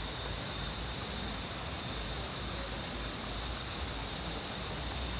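Steady, even rushing of a shallow rocky stream, with a thin, steady high-pitched tone running over it.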